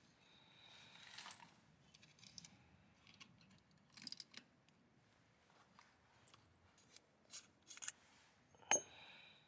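Small metal objects clinking and tapping: scattered light clicks, a few with a brief high ring, the sharpest about a second in and near the end.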